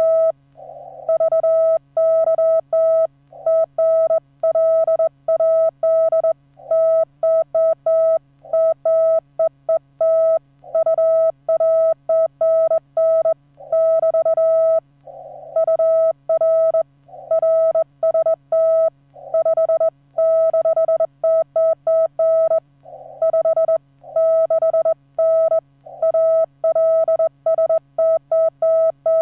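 Morse code on a ham radio transceiver in CW mode: a single mid-pitched tone keyed on and off in dots and dashes at hand-sent speed, with short pauses between words. A faint steady low hum runs underneath.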